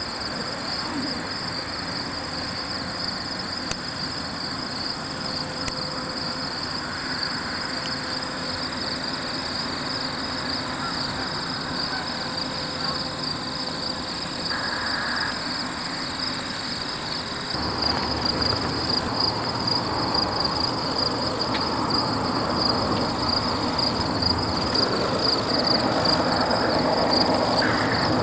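Outdoor field ambience: a steady, high-pitched, rapidly pulsing insect trill over a continuous rushing noise, which gets louder about two-thirds of the way in.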